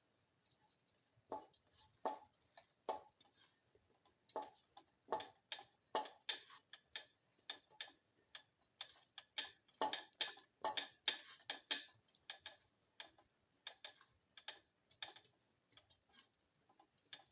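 A spatula stirring and scraping vegetables around a pan, in short strokes about two to three a second.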